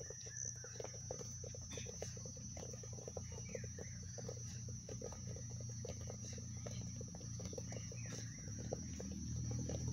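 Many soft, quick thuds of players' feet tapping and rolling footballs on grass, overlapping irregularly at several a second, with a steady high-pitched drone behind them.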